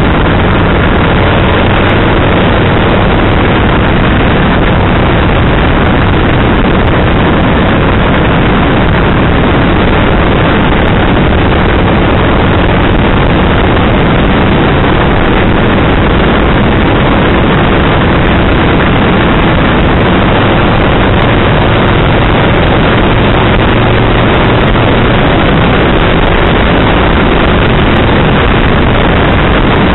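Kawasaki VN1500 V-twin motorcycle riding along at road speed. Its engine drone sits under loud, steady wind rush on the microphone.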